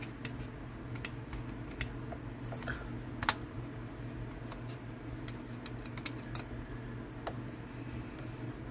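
Small, irregular clicks and ticks of a screwdriver turning short bolts out of a spinning reel's body, with one louder click a little over three seconds in. A steady low hum runs underneath.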